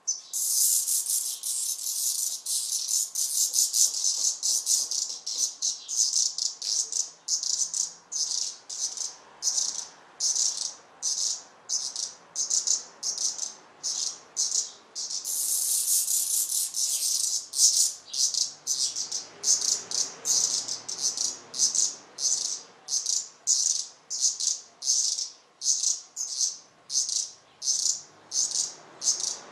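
Redstart nestlings begging: a string of high, rasping hiss calls, about one and a half a second, that run together into a continuous hiss at the start and again about halfway through.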